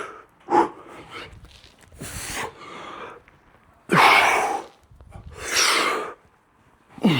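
A man breathing hard while exercising: loud, forceful exhalations about every one and a half seconds, some starting with a short voiced huff.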